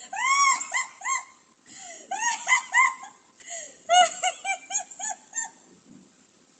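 Dog yipping: short, high-pitched yelps, each rising and falling in pitch, in three quick runs of three to six.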